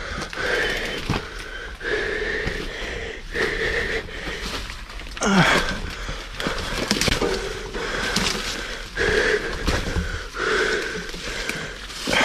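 A person's breathy, rasping sounds, each about a second long, repeating with short gaps between them. About five seconds in, a voice slides down in pitch.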